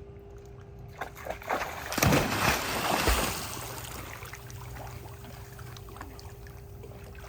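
A Great Dane splashing about in a shallow puppy pool: a loud burst of splashing about two seconds in, then water sloshing more quietly.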